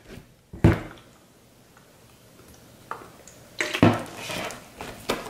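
Sticky blue slime being pressed and slapped against a tabletop by hand, the slime clinging to the palm. There is one sharp wet slap just over half a second in, then a run of squelching and slapping in the last second and a half.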